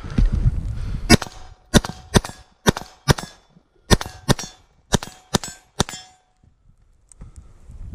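LMT RA20 piston-driven rifle firing a rapid string of about eleven shots in five seconds, in uneven pairs and groups, each with a short metallic ring after it.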